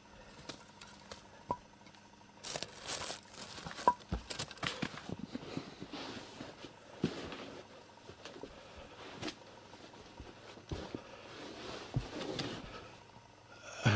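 Faint rustling and crinkling with scattered light knocks and taps, busiest a few seconds in: the movement noise of someone going about the room after a kitten with a handheld camera.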